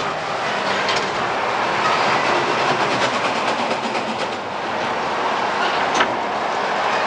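A ride train rolling along its track: a steady rumble with a few sharp clacks from the wheels.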